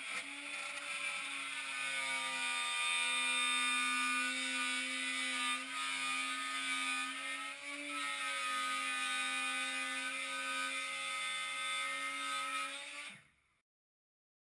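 Plunge router on a circle-cutting jig running and cutting a circular speaker ring: a steady high whine whose pitch dips slightly a few times as the bit takes load. It stops near the end.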